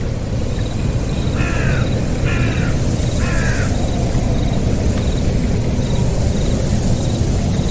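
A bird gives three short calls about a second apart, over a loud, steady, low rushing noise.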